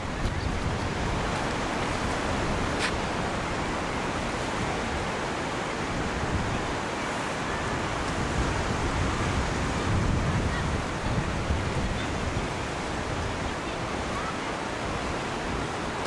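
Mediterranean surf breaking and washing up a sandy beach in a steady wash of noise, with wind buffeting the microphone in low swells, strongest about ten seconds in.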